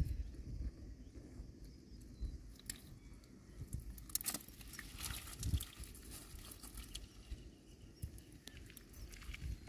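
Faint clicks and rustling of hands handling a freshly caught eel and its hook, busiest about four to five and a half seconds in, over a low steady rumble.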